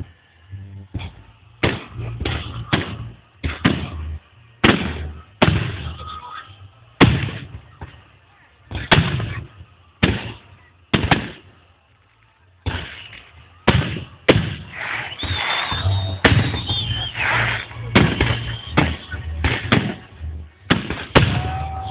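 Festive fireworks salute: a long series of loud shell bursts at irregular intervals, about one every second. The bursts crowd together in the second half. Heard through a phone's microphone, with the top end cut off.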